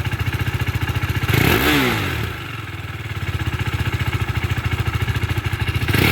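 A KTM RC single-cylinder motorcycle engine idling through its exhaust, with one quick throttle blip about a second and a half in that rises and falls in pitch. It then settles back to a steady idle, and another rev starts right at the end.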